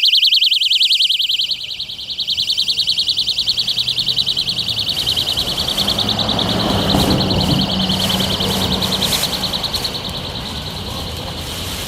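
Bear Gentleman Mini Bee plush personal safety alarm (rated 130 dB) sounding with its pin pulled: a loud, high-pitched electronic tone with a rapid warble, easing off slightly near the end.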